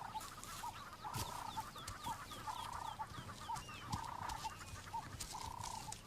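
Birds calling in the bush. One call near 1 kHz repeats about every second and a half, a longer note with short notes between. Quick, high, falling chirps come from other birds.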